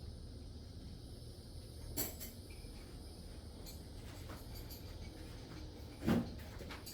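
Two short knocks about four seconds apart, the second louder, over a low steady hum.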